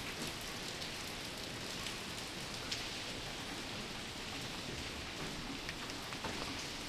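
A steady, even hiss with a few faint ticks scattered through it.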